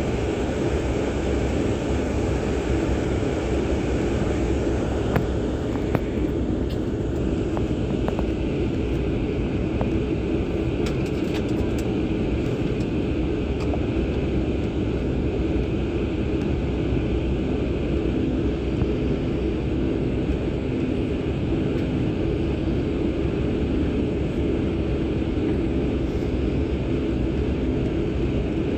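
Steady cabin noise of a jet airliner taxiing: a constant drone from the engines, with a few faint clicks between about five and thirteen seconds in.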